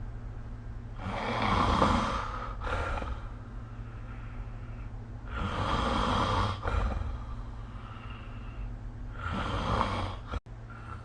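A person snoring in sleep: three snores about four seconds apart, each a noisy breath that swells and fades, over a steady low hum. The sound cuts out for an instant near the end.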